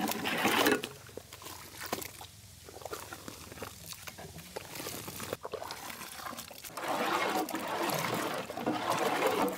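Pomegranate juice mixed with milk being poured and sloshed in a large pot, with a few light knocks. The liquid sound grows louder near the end.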